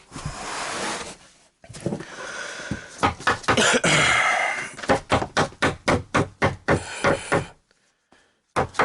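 Particle board panels being handled: scraping and rustling, then a quick run of knocks, about five a second, as a board is worked into place.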